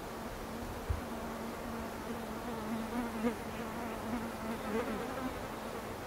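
A flying insect buzzing, a steady drone that wavers in pitch and loudness as it moves about, stopping shortly before the end. A brief low thump about a second in.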